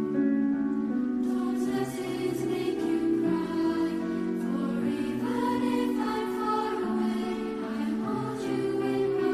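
Mixed youth choir of girls' and boys' voices singing in harmony, holding chords that shift every second or two.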